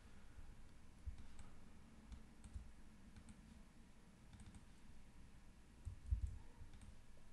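Faint, scattered clicks of a computer mouse and keyboard, with a few dull low thumps.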